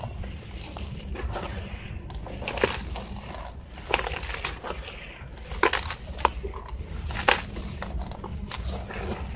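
Dry sand-cement powder and small clumps poured by hand into a heap in a plastic tub: a gritty hiss as it falls, broken by sharp crunches as clumps crumble, several times about a second apart. A low steady hum sits underneath.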